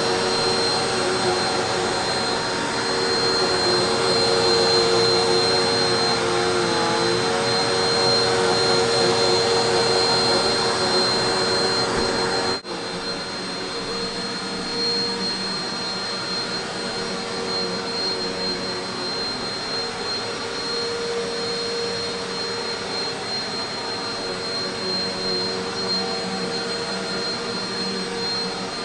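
Eureka PowerSpeed Pro Swivel Plus bagless upright vacuum cleaner running steadily, a motor whine with a high tone over airflow noise. About halfway through the sound cuts out for an instant and goes on a little quieter.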